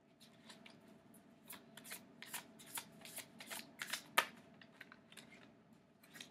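Tarot cards being shuffled by hand: a run of quick papery clicks and flicks, densest over the first five seconds, with the sharpest snap about four seconds in.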